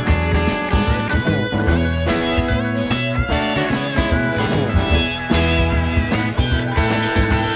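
Live band playing an instrumental jam: guitars with a steady bass and drum beat, no singing.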